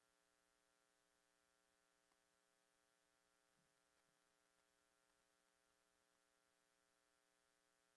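Near silence: only a faint, steady electrical hum over a light hiss.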